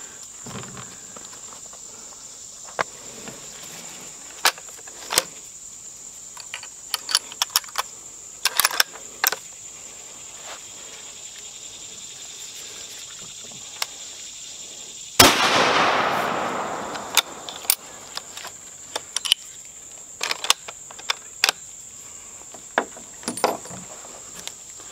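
.270 Winchester rifle firing a single shot of 130-grain Federal Fusion about fifteen seconds in, the report dying away over two to three seconds. Scattered small clicks and knocks come before and after the shot, over a steady high-pitched hum.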